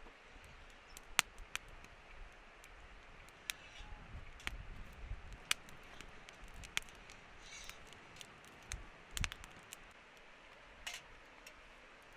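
Scattered light clicks and knocks of objects being handled, irregularly spaced, with a few soft thumps, over a faint steady hiss.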